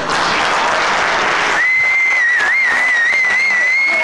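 Audience applauding, joined about a second and a half in by one long, high whistle from the crowd that wavers slightly in pitch.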